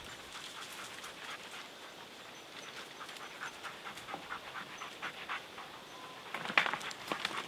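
A dog panting close by, in quick irregular breaths, with a louder rustle about six and a half seconds in.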